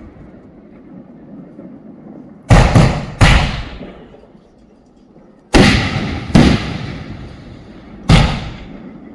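Multi-shot fireworks cake firing: six sharp bangs in uneven groups, two close pairs then one, each trailing off in a long echoing rumble.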